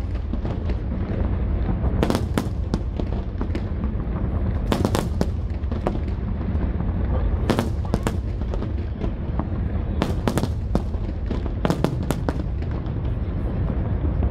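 Aerial fireworks display: sharp bangs and crackles go off every second or so, some in quick clusters, over a continuous low rumble of booming shells.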